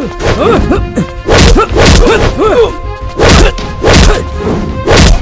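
Movie fight sound effects: about four heavy punch impacts, each a sharp whack roughly a second apart, over background action music.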